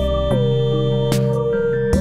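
Background electronic music: a synthesizer melody that slides smoothly from one note down to the next over held bass notes, with a short cymbal-like hit about a second in.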